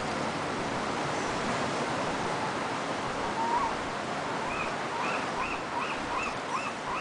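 Steady wash of ocean surf against the rocks. From about three and a half seconds in, a small bird calls in a quick, regular run of short chirps.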